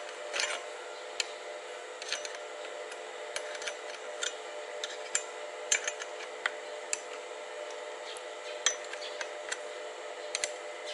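Scattered small metallic clicks and clinks of a hand spanner on the bolts of a motorcycle saddle-bag stay bracket as the bolts are tightened, over a steady hum.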